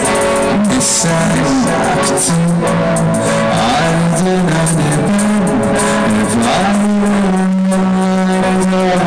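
A live rock band playing loudly through a PA during a sound check. Held notes change every second or so over steady cymbal hits, with no singing yet.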